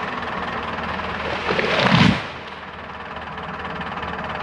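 A tree falling: a rushing crackle of branches builds about a second and a half in and ends in a heavy thud at about two seconds. A steady engine hum runs underneath.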